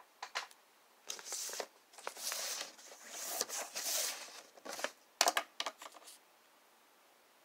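Sheets of printer paper being handled and shifted: several stretches of papery rustling and sliding, with a few sharp taps near the start and a quick cluster of clicks and taps near the end.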